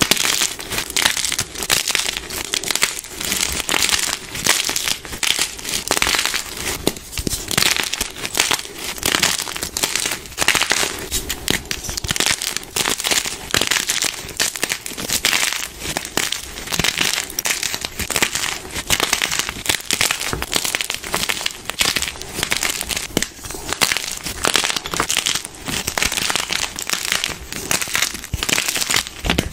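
Blocks of gym chalk (magnesium carbonate) crushed and crumbled by hand over a pile of broken chalk: a dense, continuous crunching and crackling.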